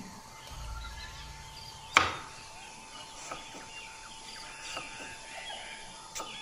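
Quiet outdoor morning ambience with faint chirps and a steady thin tone. A single sharp knock about two seconds in is the loudest sound, and near the end a kitchen knife strikes a wooden cutting board as it slices through watermelon.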